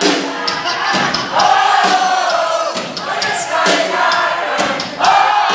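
A concert crowd singing along loudly with a live band, many voices on the melody, with sharp beats or claps above them.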